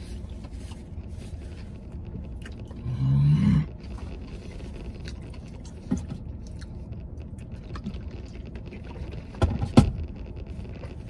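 A man chewing and eating a burger over a steady low hum inside a vehicle cab. About three seconds in comes a short hummed voice sound, and near the end a couple of sharp knocks.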